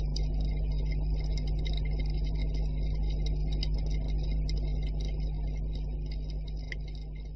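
Underwater ambience: a steady low rumble with scattered sharp clicks crackling through it, fading out over the last couple of seconds.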